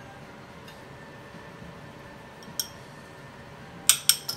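Kitchenware clinking while food is plated from glass bowls onto a plate: a couple of faint clicks, then three sharp clinks in quick succession near the end.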